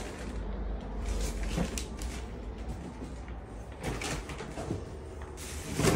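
Irregular knocks and creaks, with a louder thump near the end, over a low rumble.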